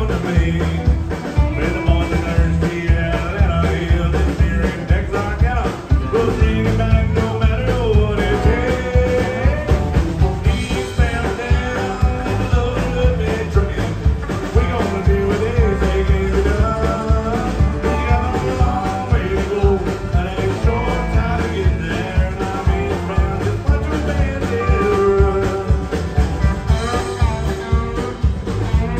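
Live country band playing an up-tempo song with a steady beat: a lead singer over acoustic and electric guitars, bass, drums and fiddle.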